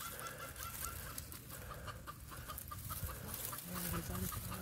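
A chicken clucking softly: a quick run of short, even notes, about four a second, that stops near the end. Faint rustling of dry leaf litter under a hand runs beneath it.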